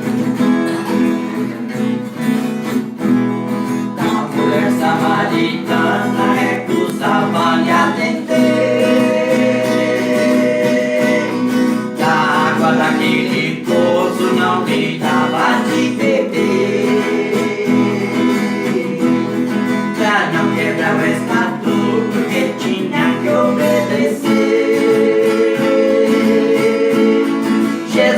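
Acoustic guitar strummed steadily as accompaniment to a Portuguese-language worship song, with singing over it.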